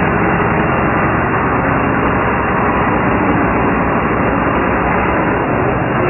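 Combine harvester running steadily, a loud continuous mechanical noise of its engine and working machinery.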